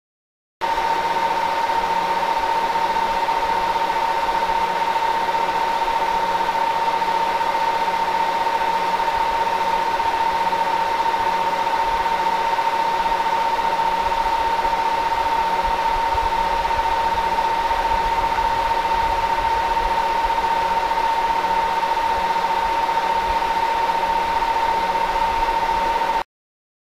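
A steady machine-like drone with a strong, even hum just under 1 kHz over a noisy hiss. It starts abruptly under a second in and cuts off abruptly near the end.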